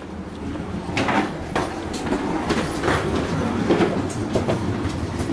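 Wheeled suitcases rolling along a jet bridge floor with footsteps, a steady rumble broken by irregular clacks as the wheels cross floor joints, over a low hum.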